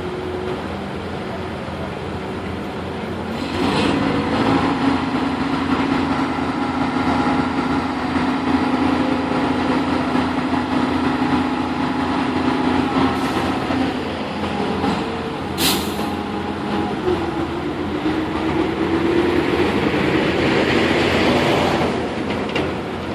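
A heavy machine's engine revs up about three and a half seconds in and holds a steady pitch for about ten seconds. It eases off, climbs in pitch again near the end, then drops back. A sharp click comes about two-thirds of the way through.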